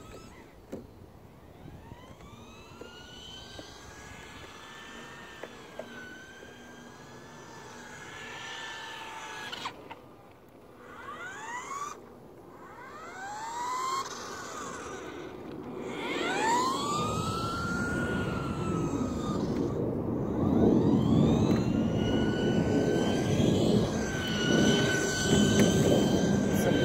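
Radio-controlled cars' motors whining as they speed up and slow down, the pitch sweeping up and falling back again and again. Over the second half the sound grows louder and rougher as the cars come closer.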